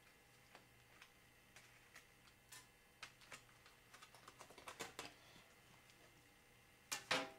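Faint, scattered clicks and taps of a small screwdriver and the aluminium case of a laptop being worked on, growing busier about four seconds in, with two louder clacks near the end.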